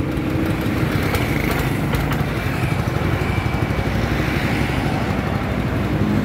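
Honda GX200-type single-cylinder petrol engine on a two-wheel hand tractor running steadily just after being pull-started.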